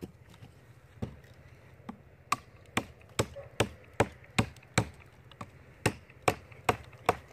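Repeated sharp strikes of a baton on the spine of a forged 80CrV2 steel knife, driving the blade down into an upright oak log. A few light taps come first, then steady hard blows about two to three a second from a little over two seconds in.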